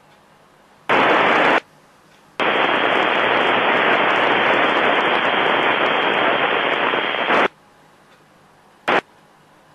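Icom IC-746PRO receiver's FM squelch opening on hiss in three abrupt bursts: a short one, one about five seconds long, then a brief blip near the end. Each cuts off suddenly, typical of a weak, noisy signal on the NA1SS downlink frequency breaking the squelch.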